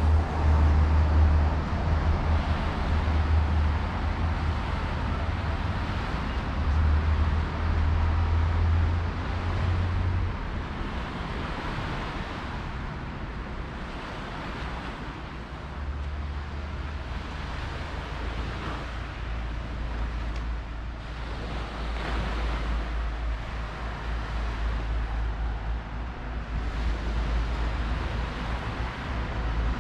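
Outdoor ambience beside a seaside road: a low wind rumble on the microphone, heaviest in the first third, over road traffic noise and the wash of the sea.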